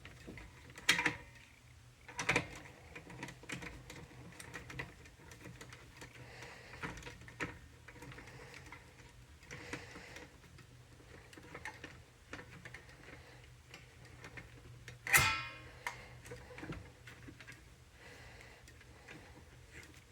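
Mostly quiet, with a faint steady low hum and a few scattered clicks and knocks about one and two seconds in. One louder, brief clattering knock comes about fifteen seconds in.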